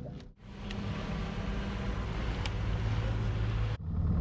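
Small boat's outboard motor running at idle, a steady low hum, with a faint click or two.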